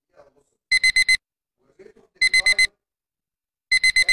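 An electronic alarm beeping in groups of four quick, high-pitched beeps, one group about every second and a half, three groups in all.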